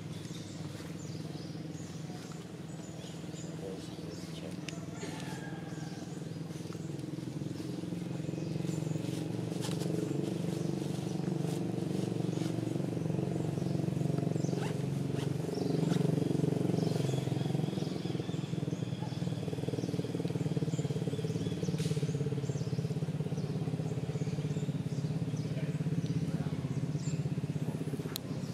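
Low, steady engine hum of a motor vehicle running nearby, growing louder over the first half, with scattered light ticks and faint high chirps over it.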